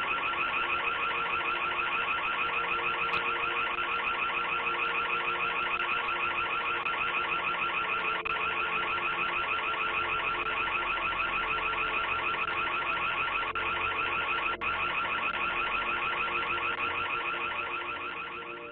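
Electronic security alarm siren sounding continuously, a loud, rapidly pulsing high-pitched tone that fades out near the end.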